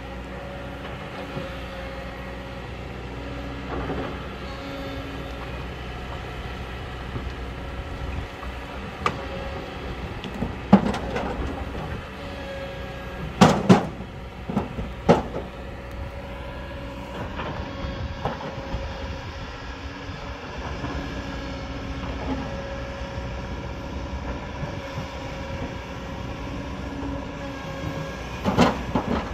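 Hydraulic excavator's diesel engine running steadily as it digs a rocky hillside, with sharp knocks of rock: a cluster about halfway through and a few more near the end.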